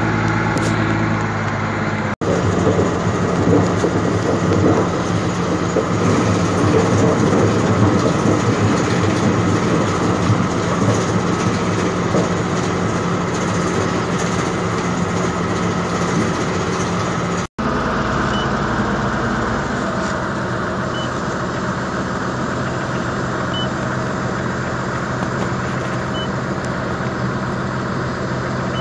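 Grimme SE 260 potato harvester working behind a Deutz-Fahr Agrotron 130 tractor, engine and machinery running steadily. In the middle part, potatoes pour from the harvester's bunker into a trailer, a louder rough clatter over the engine. In the last part a faint short beep repeats about every two and a half seconds.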